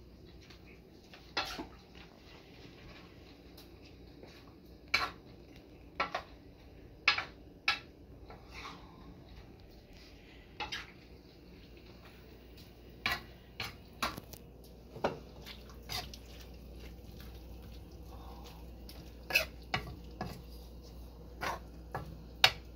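Metal spoon clinking and knocking against a frying pan as rice noodles and vegetables are stirred: scattered sharp clinks at irregular intervals, with a few scrapes between them.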